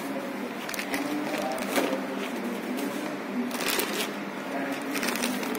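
Thin clear plastic bag crinkling and rustling as a boxed camera is handled inside it and slid out, with scattered sharp crackles.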